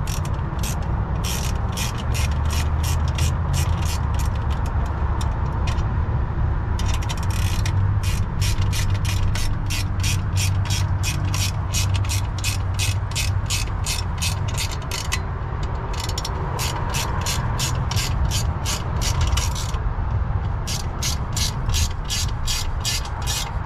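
Hand ratchet wrench clicking in runs of quick, even strokes, about three clicks a second, with a few short pauses, as the nut on the turbo down-pipe clamp of a Cummins diesel is tightened.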